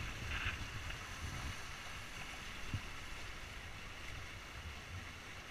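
Water rushing and splashing along the hulls of a sailing trimaran, with an uneven low rumble of wind buffeting the microphone.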